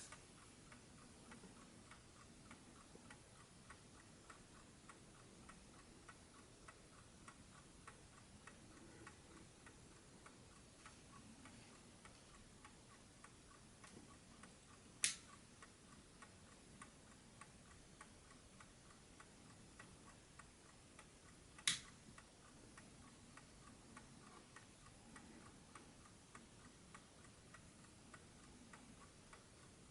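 JAZ VINIC "DISCRETO" wind-up alarm clock's calibre 4PA mechanical movement ticking softly, with rapid, even ticks; the soft tick is what the DISCRETO model is known for. Twice, about seven seconds apart, a single sharp click stands out above the ticking.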